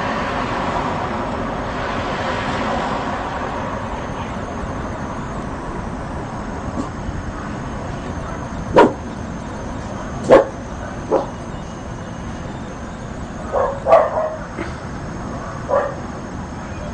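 A dog barking in short, sharp barks, about six of them from about halfway through, over a steady hum of city traffic.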